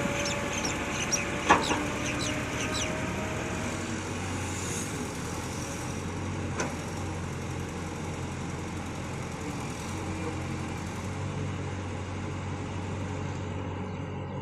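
Diesel excavator engine running steadily with a low hum. A quick series of short high chirps sounds in the first three seconds, with a sharp knock about a second and a half in and another about halfway through.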